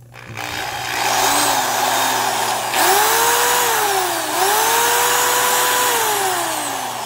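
Porter-Cable 2610 7-amp corded drill running free with no load, its speed set by the variable trigger. It spins up just after the start, runs faster from about three seconds in, dips briefly, then slows toward the end. The loud cooling-fan whine rises and falls with the motor speed.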